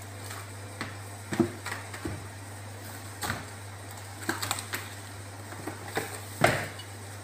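Cling film being pulled from its box and pressed over a glass bowl on a steel counter: irregular crackles, clicks and taps, the loudest about a second and a half in and again near the end. A steady low hum runs underneath.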